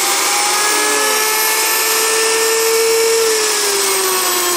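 WonderMill electric grain mill running at full speed: a loud, steady high-pitched motor whine with several overtones. The pitch sinks slightly a little past three seconds in, as whole grain is poured into the hopper and the mill starts grinding under load.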